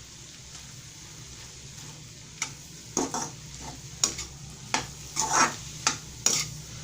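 A spatula stirring and scraping a pan of dry-cooked aloo gobhi (potato and cauliflower) to mix in fresh coriander, in a run of short scrapes starting a couple of seconds in, over a faint frying sizzle.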